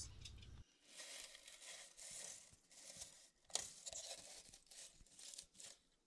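Faint rustling and crackling of dry finch-nest fibres being brushed and handled, with one light click about three and a half seconds in.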